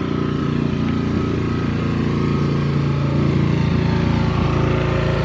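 Snowblower's small gasoline engine running steadily, left running to burn off the gas in it.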